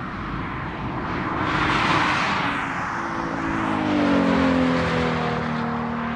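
Nissan 370Z's V6 passing by at speed: a rush of engine and road noise that peaks about two seconds in, then the engine note slides down in pitch as the car pulls away.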